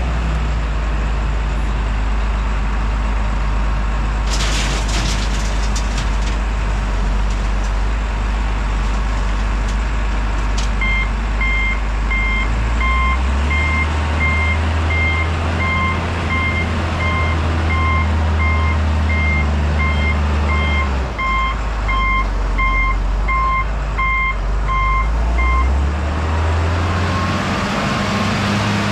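A heavy truck's engine running and shifting pitch as it manoeuvres, with its reversing alarm beeping steadily for about fifteen seconds while it backs up. A short burst of hiss about four seconds in, like an air-brake release.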